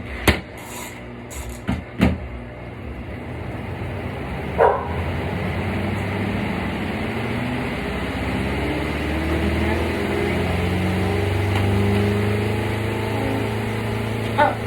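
Spin dryer of a portable twin tub washing machine starting up: a few clicks, then the motor and spin basket hum, rising in pitch over several seconds as the basket gets up to speed, and settling into a steady spin.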